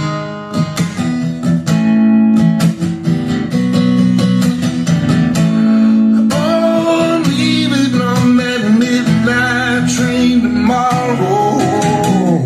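Recorded soft-rock ballad music in an instrumental passage between sung lines: guitar-led backing with sustained chords, and a higher melody line coming in about halfway.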